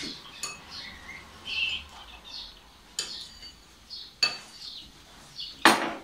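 Metal spoon clinking against a small porcelain bowl while eating: four sharp clinks, the loudest near the end.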